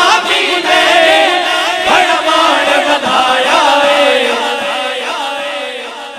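Male voices singing a Punjabi devotional manqabat in a chanting style, without instruments, fading away over the last two seconds.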